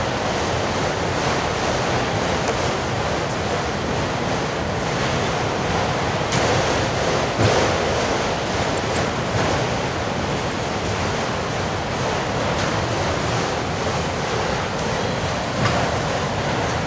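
Autorack freight cars rolling past on the rails: a steady rushing noise of wheels on track, with a few sharp knocks.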